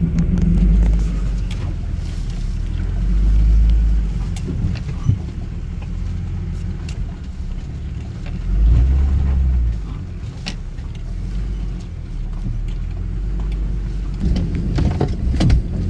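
Ram 2500 diesel pickup towing a trailer at low speed, a steady low rumble of engine and tyres that swells twice, with a few faint knocks and rattles.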